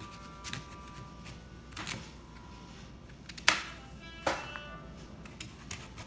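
Chef's knife cutting through a firm peeled orange vegetable and striking a plastic cutting board, about seven sharp irregular cuts, the loudest about three and a half seconds in. Background music with sustained tones plays throughout.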